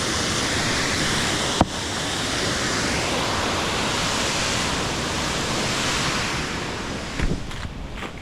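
Waterfall rushing, a steady hiss of falling water. There is one sharp click about a second and a half in, and a few knocks near the end as the rush gets quieter.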